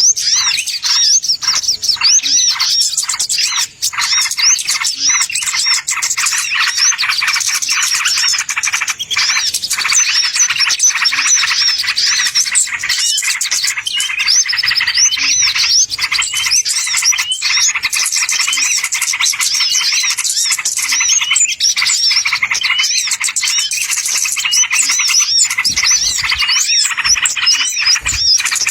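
Small songbirds chirping and twittering in a dense, unbroken stream of quick high-pitched notes, a bird-lure (pikat) call recording meant to draw wild birds in.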